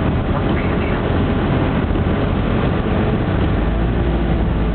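Car driving along a road, heard from inside the cabin: steady engine and road noise.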